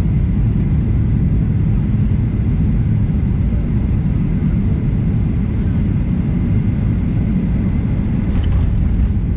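Steady low rumble of cabin noise in a Boeing 737-800 on approach: its CFM56-7B engines and the airflow heard from a window seat, with a faint steady whine above it.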